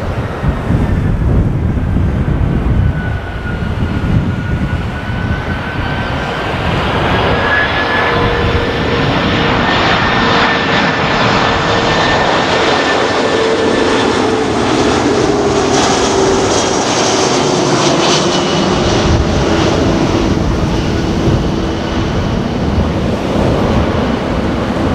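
Airbus A340-300 airliner on landing approach, its four CFM56-5C turbofan engines running as it passes low and close: a steady loud jet rumble with an engine whine that falls in pitch from about halfway through as the aircraft goes by.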